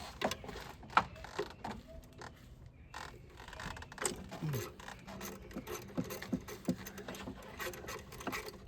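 Scattered metal clicks and clinks of a socket wrench being fitted to and worked on the nut that holds the wiring to an alternator.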